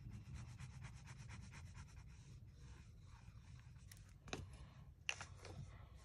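Liquid glue bottle's applicator tip rubbed back and forth over the back of a small cardstock circle: a faint, fast scratchy rubbing, easing off about halfway through, then two sharp clicks near the end.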